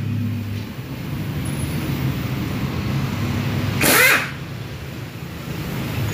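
Impact wrench with a 14 mm socket giving one short burst, about four seconds in, while loosening the gearbox bolts. Under it a steady low machine hum runs throughout.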